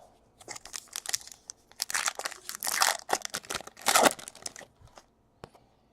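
Foil trading-card pack wrapper crinkling and tearing, with cards being handled, in irregular rustling bursts that are loudest in the middle of the stretch.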